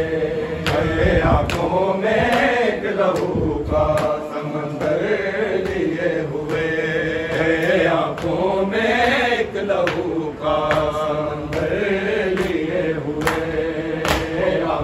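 Group of men chanting an Urdu noha, a Shia mourning lament, in one voice. Sharp hand slaps of chest-beating (matam) keep a steady beat, about one and a half a second.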